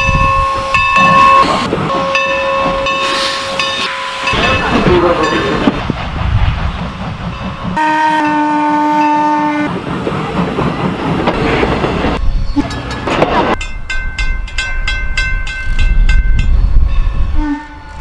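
Norfolk and Western No. 475 steam locomotive blowing its whistle, held blasts at the start and again about eight seconds in. Near the end its passenger coaches roll past, the wheels clicking over rail joints in an even rhythm.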